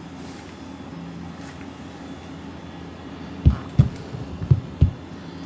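A hand patting a cat's back: four dull, low thumps in uneven succession about three and a half seconds in, over a steady low hum.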